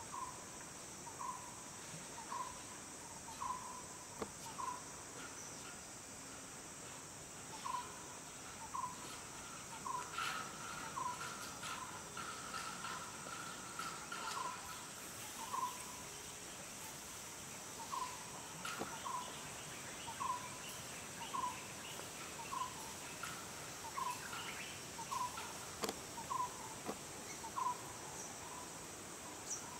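A bird calling one short note over and over, about once a second, over a steady high-pitched insect drone.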